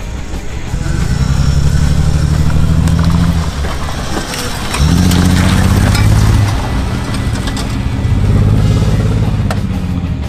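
A 1990 BMW 525i's straight-six engine running as the battered car is driven over dirt. It revs up about a second in and again near five seconds, with scattered knocks and rattles.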